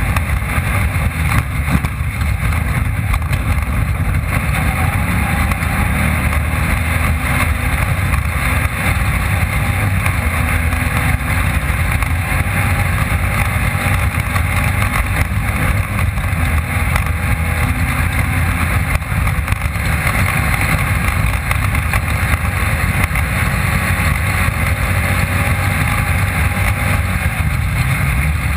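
Off-road race car's engine running steadily at speed, heard through an onboard camera mounted in the car, mixed with the rush of wind and terrain noise.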